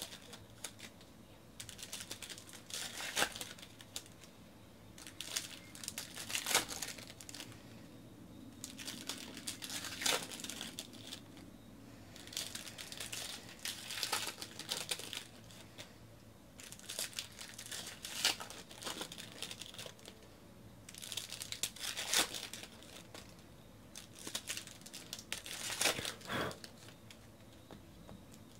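Foil wrappers of Bowman Draft baseball card packs crinkling and tearing as the packs are ripped open, in bursts every three to four seconds.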